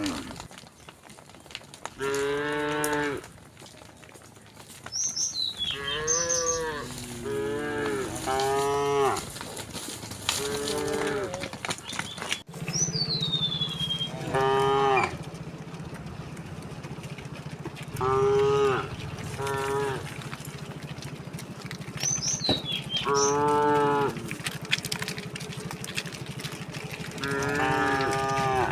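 Cattle in a herd mooing again and again, different animals calling one after another, each moo lasting under a second. A few high falling whistles are heard among the moos.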